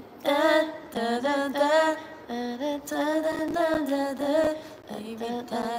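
A woman's voice singing a cappella, unaccompanied, in phrases of held notes with small bends in pitch and short breaks between them.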